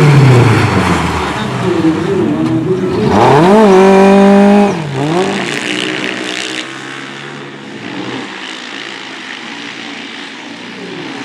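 Speedway motorcycle engines revving up and down as the bikes race round the dirt track. A loud pass at full throttle holds one high pitch for about a second and a half, then cuts off sharply, leaving quieter engine noise from farther round the track.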